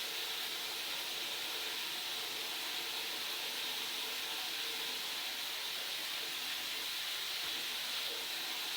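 Steady, even hiss with no knocks or other distinct events.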